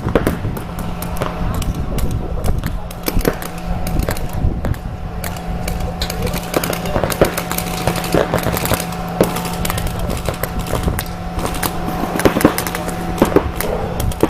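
A rapid, irregular run of sharp clacks and pops over a steady low hum.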